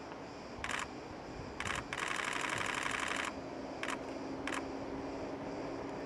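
Camera shutters clicking: a single shot just under a second in, another near the two-second mark, a rapid continuous burst lasting just over a second, then two more single shots.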